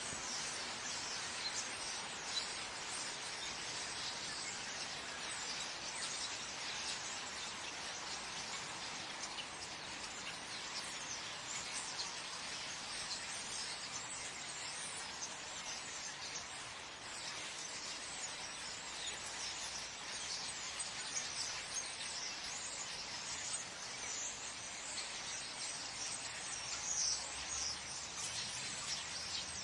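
Night ambience of birds calling in trees: a dense, steady chatter of many short, high chirps over a continuous hiss.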